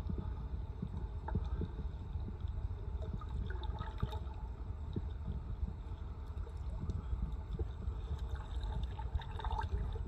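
Water lapping and gurgling against a paddleboard's hull as it glides, over a low steady rumble of wind with small scattered water ticks.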